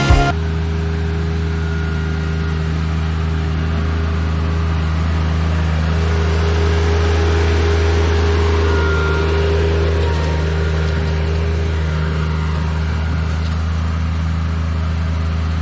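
TYM T25 compact tractor's diesel engine running steadily at constant speed, with a steady low hum that swells slightly in the middle.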